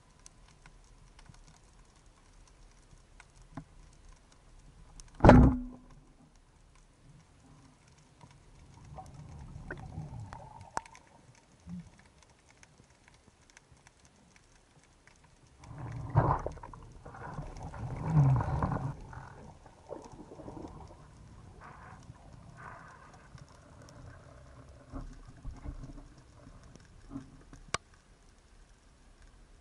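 Underwater sound through a camera housing on a speargun: a faint, scattered clicking crackle. A single sharp knock with a brief ringing tone comes about five seconds in, and a longer swell of low rumbling noise comes a little past the middle.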